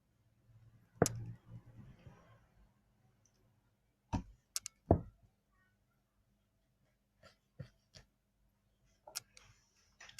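Scattered sharp clicks and knocks of containers and utensils being handled while making slime, the loudest about a second in and again about four to five seconds in, with a brief soft rustle after the first knock.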